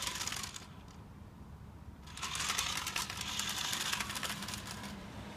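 Remote-control toy car running in two spells of rapid clicking and rattling, with a pause of about a second and a half between them.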